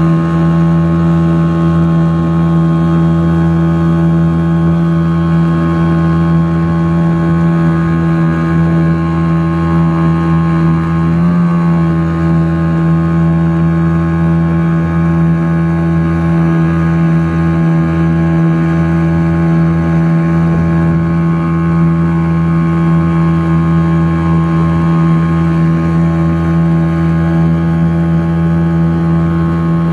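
Yamaha 2 hp outboard motor running steadily at cruising throttle, pushing a small boat along, its even drone wavering briefly about eleven seconds in.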